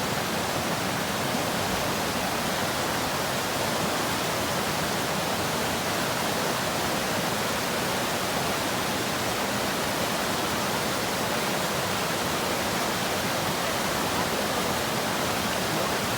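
Stream water rushing, a steady, unbroken hiss of running water.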